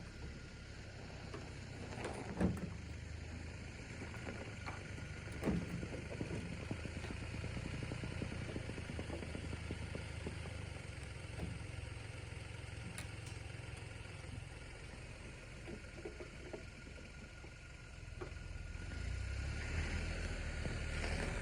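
Pickup truck engine idling steadily, with a couple of sharp knocks in the first few seconds.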